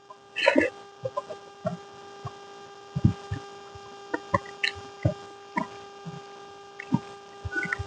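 Eating sounds: scattered small chewing and mouth clicks with a few soft low thumps, over a steady electrical hum.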